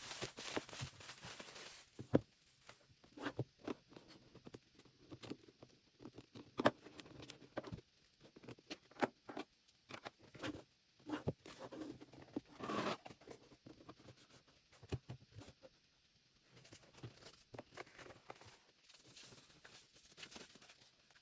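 Packaging being handled during an unboxing: irregular rustling and tearing of paper or plastic, with scattered light taps and knocks of cardboard and the unit being moved.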